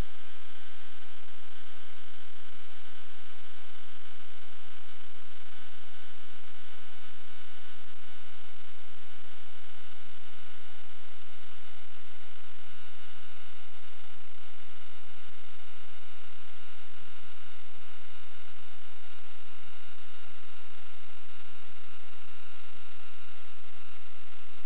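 Steady electrical hum and hiss with several thin, high whining tones, as picked up on the audio of a sewer inspection camera rig. A lower tone slowly sinks in pitch over the first half.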